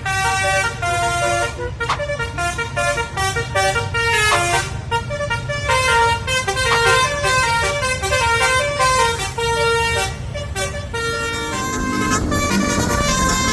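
Basuri musical air horn on a bus, sounding continuously as it plays a tune of quick changing notes over the low running of the bus engine.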